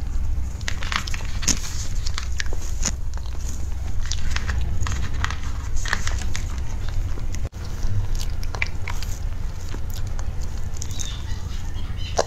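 Close-miked eating of a soft pink mousse cake with a taro-paste filling, taken in spoonfuls: chewing with scattered sharp mouth clicks and smacks. A steady low hum runs underneath.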